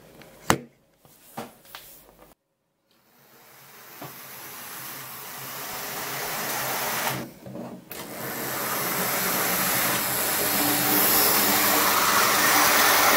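A few sharp clicks near the start, then a Hornby InterCity 225 electric model train running on its track: a steady whir of its motor and wheels on the rails that grows louder as it comes closer, with one short break about two thirds of the way through.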